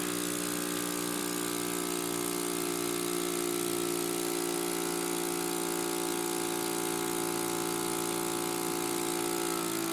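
Portable medical suction pump running steadily: a constant motor hum with an airy hiss, its pitch dipping slightly near the end.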